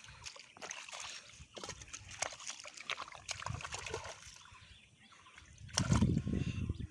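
Shallow muddy paddy-field water splashing and trickling as a caught catfish is handled and set down in the water, with sloshing from wading. Near the end a louder low rumble sets in.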